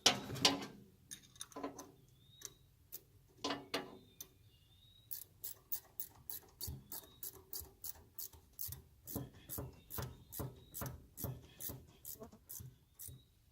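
Ratchet wrench clicking as the nut is run down onto a driveshaft shear pin: a few loose metallic clinks at first, then a long run of quick, even clicks, about four or five a second.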